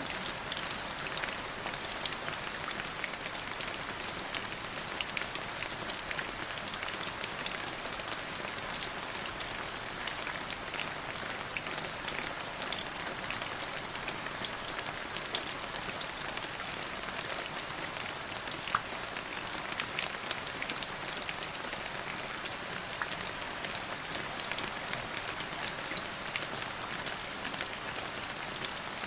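Steady rain falling, a constant hiss dotted with sharp individual drop hits, one louder hit about two seconds in.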